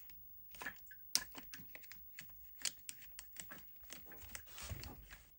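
Irregular small clicks and scrapes of a Phillips screwdriver turning out the last screw holding a floor fan's housing, with handling of the parts. The sound is quiet, with a slightly longer scraping rustle near the end.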